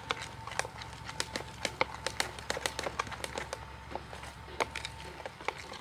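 Fluffy slime of glue, shaving foam and borax being mixed in a plastic bowl, giving irregular sticky clicks and pops, several a second. A faint steady tone runs underneath until near the end.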